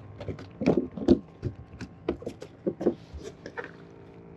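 Irregular clicks and knocks of fishing tackle being handled as a small fish is brought in. About three and a half seconds in, a steady low hum starts.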